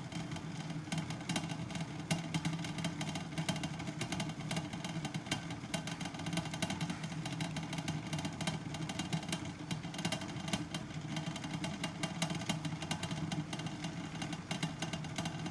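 A machine running steadily: a low hum under a fast, dense clatter, starting and stopping abruptly.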